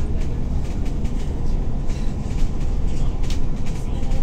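Steady low rumble of a moving passenger vehicle heard from inside the cabin, with light clicks and rattles now and then.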